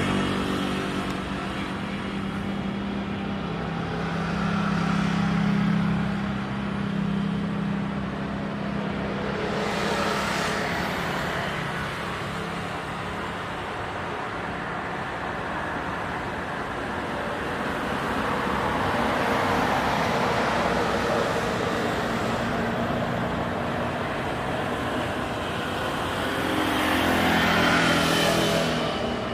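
Steady road traffic noise, with vehicles passing close by about a third of the way in and again near the end.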